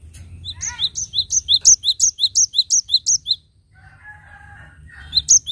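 Cinereous tit singing in full song. It gives a fast run of repeated high two-note phrases, about four a second, for some three seconds. A softer, lower chatter follows, then the same run starts again near the end.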